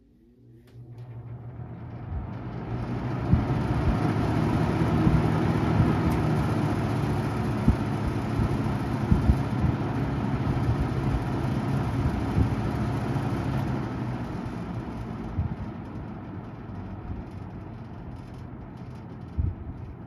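1980s Kmart K-223 box fan switched on: its motor hum rises as the blades spin up over a couple of seconds, then it runs steadily with a rush of air over a low hum. About fifteen seconds in it drops to a quieter, steady level.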